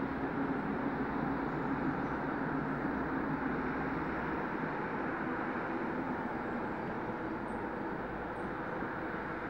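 Electric locomotive running at a distance, a steady hum over rumbling noise that fades slightly as it moves away.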